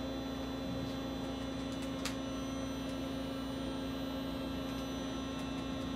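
Steady hum of a Daewoo Puma TT2000SY CNC lathe running, with one strong low tone, and a faint click about two seconds in.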